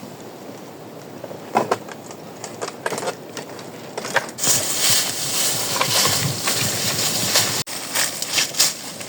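Firewood being handled and broken: scattered knocks and snaps, then a few seconds of loud crunching and rustling that cuts off suddenly, followed by more knocks.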